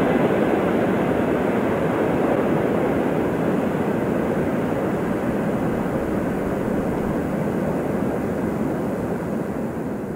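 Steady rolling noise of a long freight train receding along the rails, slowly growing fainter and dropping away near the end.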